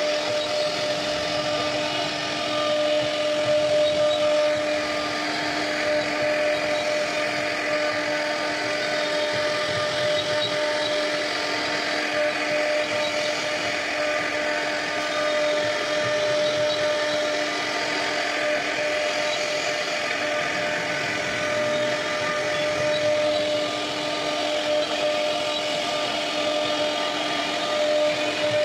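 CNC router spindle running steadily with a constant whine as its bit carves a wooden door panel, over a hiss of wood being cut away.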